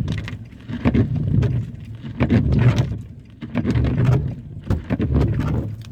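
Car noise in the cabin: a low rumble that swells and fades in uneven surges about once a second, with a few short clicks.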